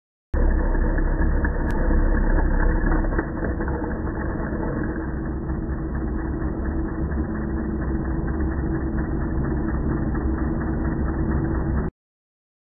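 Wood lathe running while a turning tool cuts the spinning hardwood stem beside a captive ring, a steady hum with scraping from the cut. It sounds muffled, and it starts and stops abruptly, a little quieter after about three seconds.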